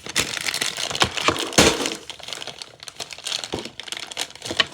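Plastic packaging bag crinkling as it is handled and pulled open by hand, an irregular run of crackles, loudest about one and a half seconds in.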